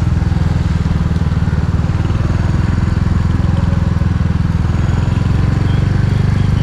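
Royal Enfield Hunter 350's single-cylinder engine running steadily at low speed while the motorcycle rides along, a dense low pulsing with road and wind noise over it.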